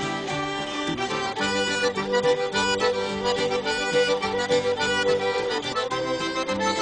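Cajun band music, with an accordion carrying the tune in an instrumental break.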